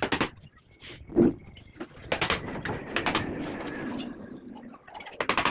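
About five sharp knocks and thuds on a plywood door frame as it is handled and set in place, the loudest a dull thud about a second in. Between about two and four seconds in there is a stretch of scraping and rubbing.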